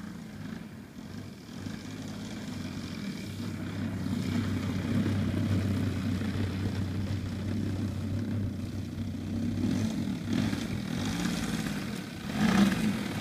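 The DLE-120 twin-cylinder two-stroke gas engine of a large RC Edge 540 aerobatic plane running at low throttle as the plane taxis, growing louder as it comes closer. Near the end the engine briefly runs up louder.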